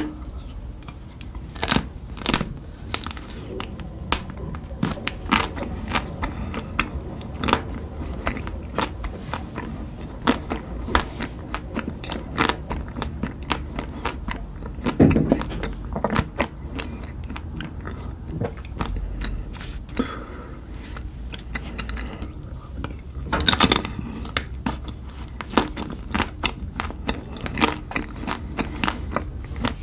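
Someone eating ice cream close to the microphone: repeated crunching bites and chewing, with many sharp crackles.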